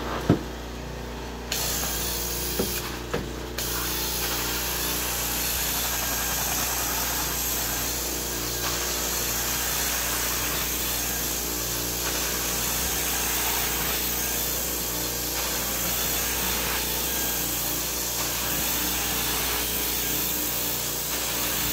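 Carpet-cleaning extraction wand drawn over carpet: a steady suction hiss over the hum of the extractor machine, with a few knocks in the first three seconds and the hiss filling in about a second and a half in, rising and falling slightly with the wand's strokes.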